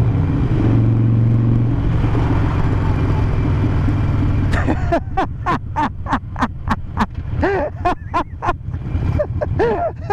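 Harley-Davidson Sportster 883's V-twin engine running steadily while riding at road speed. From about halfway, a rapid string of short chirps that rise and fall in pitch, about four a second, sits over the engine's lower rumble.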